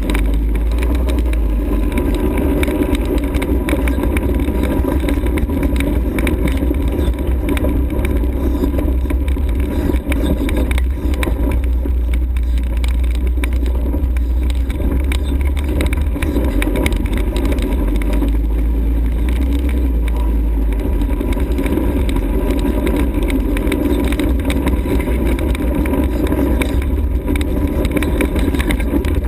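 ATV engine running steadily while riding, with a heavy low rumble throughout and no pauses.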